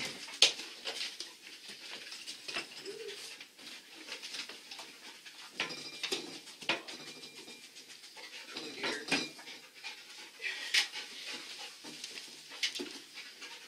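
A dog panting and sniffing in quick puffs while it searches for a scent, with scattered knocks and rustles as it moves.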